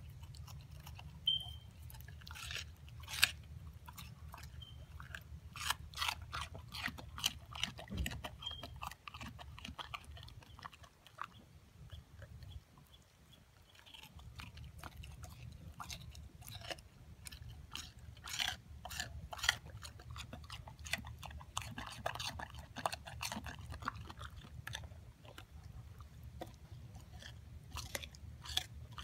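Siberian husky chewing and crunching a wedge of watermelon rind: a run of irregular crisp crunches, with a quieter pause about halfway through. A steady low hum sits underneath.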